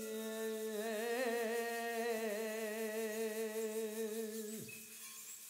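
A single unaccompanied voice holding one long note at the end of a folk-song line, wavering slightly about a second in, then falling away and dropping in pitch near the end.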